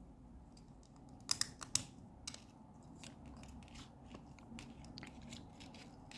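A few sharp clicks and knocks of a 3D-printed plastic gimbal assembly with servos and motor being handled and set down on a table, the loudest a quick cluster about a second and a half in; otherwise faint room noise.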